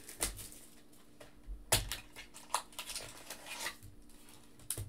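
Trading-card boxes and packs being handled on a tabletop: a handful of scattered taps, knocks and rustles, the sharpest knock a little under two seconds in.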